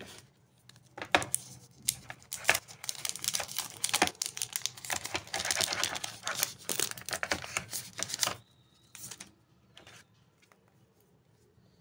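A smartphone's cardboard box and plastic wrapping handled by hand: crinkling, rustling and sharp taps for about eight seconds, then a few lone clicks.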